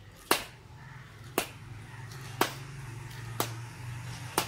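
Axe chopping into a tree: five sharp strikes evenly spaced about a second apart.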